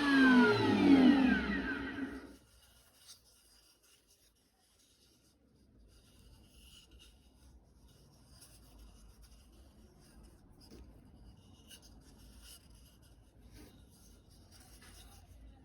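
Wood router motor spinning down after being switched off, its whine falling in pitch and dying away about two seconds in. After a quiet pause, faint rubbing and light taps of wood being handled.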